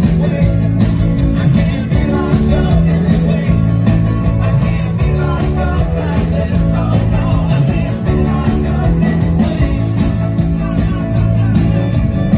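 Live band music with a steady beat: banjo, acoustic guitar, cello, fiddle, drums and keyboard playing an amplified folk-rock song.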